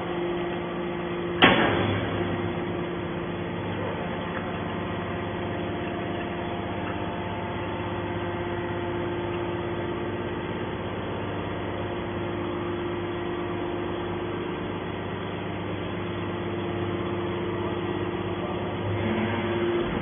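Hydraulic scrap-metal baler's power unit running with a steady hum while the compressed bale is pushed out of the front of the press. One sharp bang about a second and a half in is the loudest sound.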